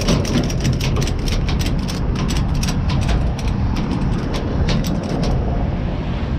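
Loaded flatbed tow truck driving on the road, with a steady rumble of road and engine noise. A fast, rattling metallic clicking runs over it and stops about five seconds in.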